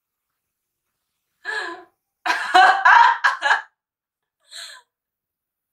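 A woman laughing in choppy bursts: a short laugh about a second and a half in, then a loud broken run of laughter, and a faint brief one near the end.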